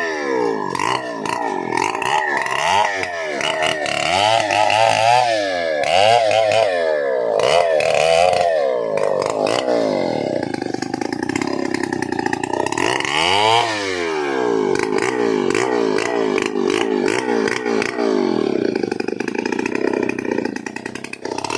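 Stihl 070 two-stroke chainsaw running, its throttle blipped so the engine revs up and falls back several times, then holding a steadier speed for several seconds near the end.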